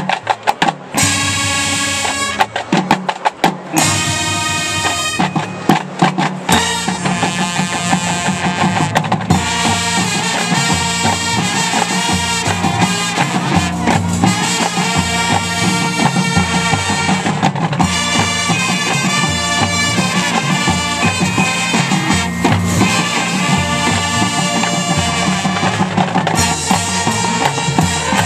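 Marching band playing. The first few seconds are short separated hits with brief gaps, then the music runs on continuously over a steady drum beat.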